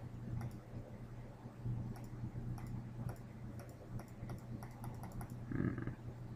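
Computer mouse clicking repeatedly, about ten sharp clicks at uneven spacing, over a steady low hum. A brief hum-like sound comes near the end.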